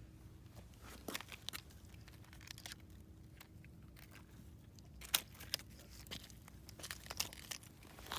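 Irregular handling noises: rustling, crinkling and light clicks, busier from about five seconds in, over a faint steady hum.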